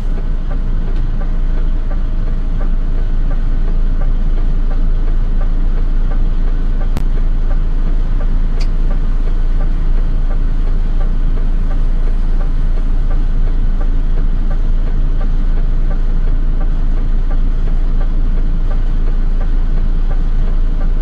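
Steady low engine rumble of a vehicle idling while stopped, heard from inside its cab.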